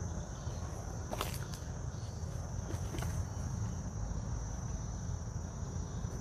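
Insects chirring outdoors as a steady high-pitched drone over a low rumble, with a few faint clicks about a second and three seconds in.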